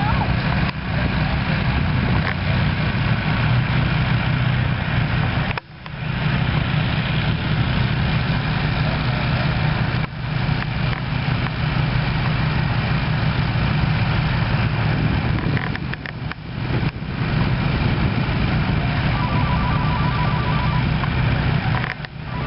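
A large vehicle engine running steadily with a deep hum, broken by brief dropouts. Faint rapid beeping comes in near the end.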